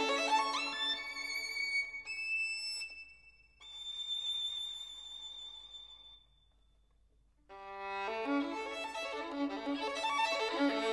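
Background music led by a violin playing held notes with vibrato. It fades out about six seconds in and comes back suddenly, fuller, a second and a half later.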